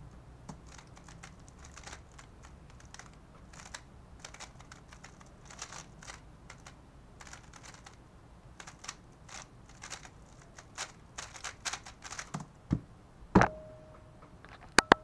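A QiYi Valk 3 Elite M magnetic speedcube being turned fast through a solve: rapid plastic clicking of the layers turning, for about twelve seconds. The clicking stops, and then come a few much louder knocks, the loudest a little after it stops.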